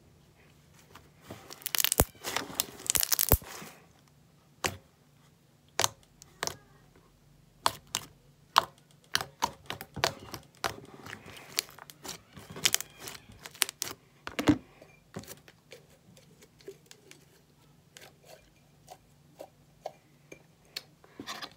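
Pink slime being pressed, poked and stretched by hand on a tabletop, squelching with sharp pops and clicks. A dense crackling burst comes about two seconds in, then scattered pops and clicks follow.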